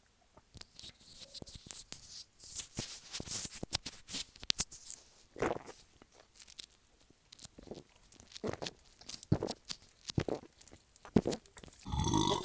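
Quiet, irregular crackles and clicks.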